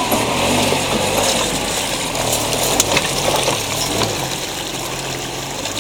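Off-road Suzuki Vitara wading through water: its engine runs steadily under a continuous rush and splash of water around the vehicle.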